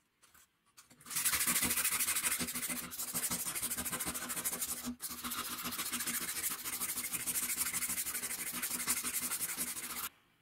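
Sandpaper rubbed by hand along a rusty metal scale bar: fast, steady back-and-forth scratching that starts about a second in, breaks off briefly near the middle, and stops just before the end.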